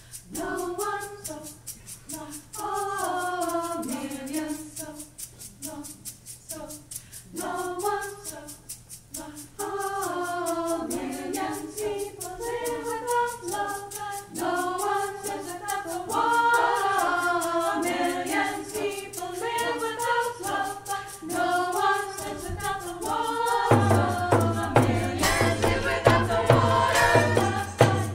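Women's choir singing a cappella in several parts. Near the end the sound changes abruptly to louder singing over a steady hand-drum beat.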